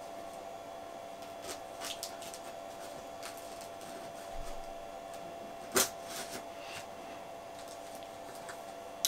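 A tanto-style knife blade slitting the packing tape along the edge of a cardboard shipping box, with soft scrapes and handling rustles of the box and one sharp click about six seconds in, over a steady faint hum.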